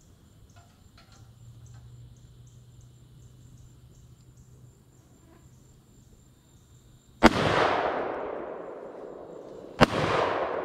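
Two shots from an AR-style rifle about two and a half seconds apart, mad loud, each followed by a long rolling echo that fades over a couple of seconds.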